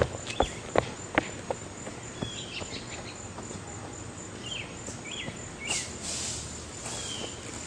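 Insects chirping in a steady, evenly pulsed high trill, with a few sharp clicks in the first second and a half, scattered short chirps, and a brief rustle about six seconds in.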